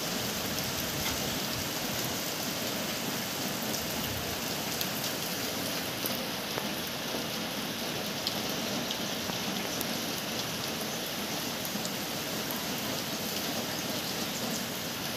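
Steady rain falling on clay-tiled roofs and the ground, an even hiss with scattered sharp ticks of single drops.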